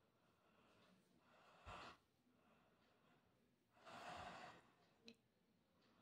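A woman yawning, heard as faint breath sounds: a short breath a little under two seconds in and a longer, sighing breath around four seconds, followed by a brief click.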